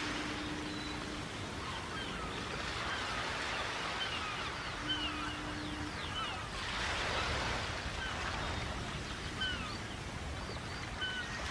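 Short, high, falling bird chirps, one every second or so, over a steady rush of wind and water that swells about seven seconds in. A low steady hum sounds twice, each time for about a second.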